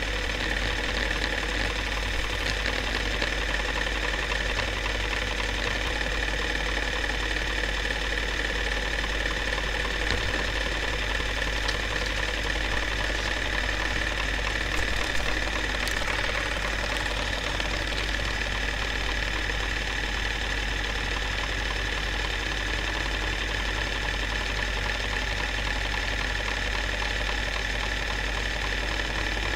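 Small-gauge cine film projector running, a steady mechanical whir and clatter with a low hum.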